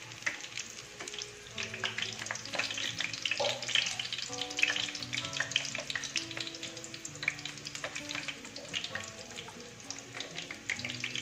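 Aloo tikki (potato patties) sizzling in hot shallow oil after the burner is turned off, a steady crackle of many small pops as a slotted steel spoon lifts them out. Soft background music plays underneath.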